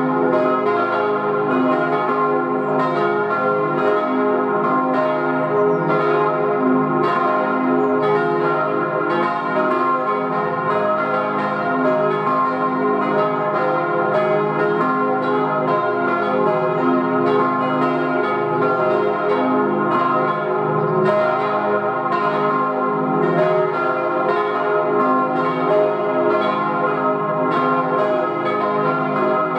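Church bells from a four-bell ring cast in 1897 by the Rüetschi foundry of Aarau, tuned c', e-flat', f' and a-flat', swinging and ringing together in a continuous peal. The strikes overlap so that the bells hum on without a break.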